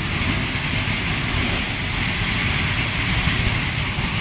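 A large training fire burning steadily with a constant rumble, under the steady hiss of a water spray directed at it.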